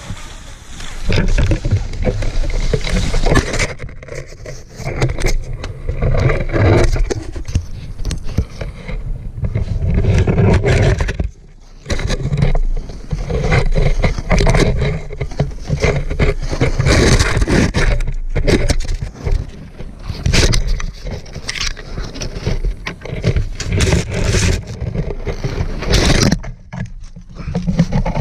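Skis sliding and scraping over crusty snow, loud and uneven in surges, over a low rumble of wind on the camera microphone.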